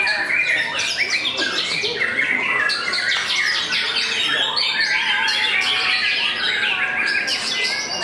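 White-rumped shama (murai batu) singing a continuous stream of fast, varied whistled and chattering phrases, without a pause.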